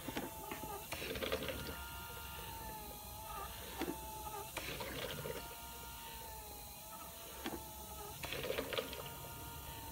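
Open-source 3D-printed emergency ventilator prototype cycling. Its 12 V DC gear motor turns 3D-printed cams that pinch silicone tubes, giving a burst of clicking and rattling about every four seconds, three in all, over a steady motor whine. Each burst marks one breath cycle.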